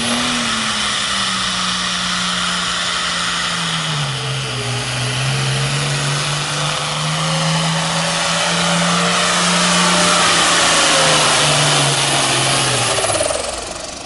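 Pulling tractor's diesel engine at full throttle, dragging a weight-transfer sled. Its pitch sags about four seconds in as the load builds, holds steady under the strain, then drops away near the end as the run ends.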